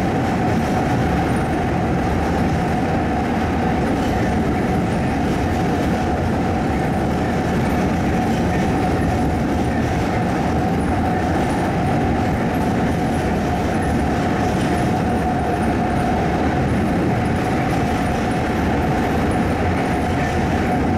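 Airport people-mover shuttle train running at speed through a tunnel: a steady running rumble with a constant whine held through the whole ride.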